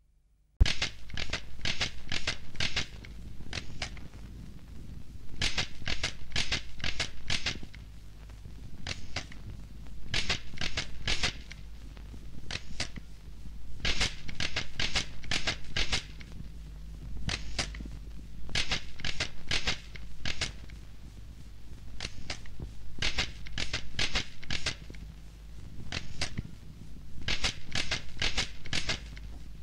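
Bursts of sharp clicking strikes, four or five quick strikes at a time, repeating every second or two over a low steady hum. The clicks start about half a second in, after a moment of silence.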